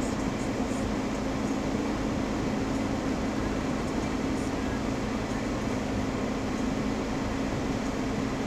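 Steady low hum of a vehicle's engine heard from inside the cabin as it idles and crawls at walking pace, with no change in pitch.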